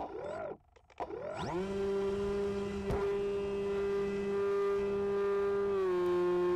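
Electric motor and propeller of the Cloud Surfer RC plane (stock brushless motor, APC 8x4 prop) giving a short blip, then spinning up about a second in to a steady high whine as it is launched and flown under power. The pitch dips slightly near the end.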